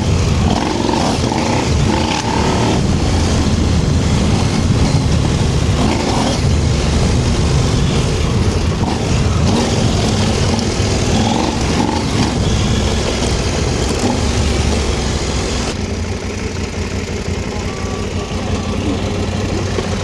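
KTM 790 Adventure R's parallel-twin engine running steadily as the bike is ridden, with wind and road noise over it. The sound grows a little quieter and duller about sixteen seconds in.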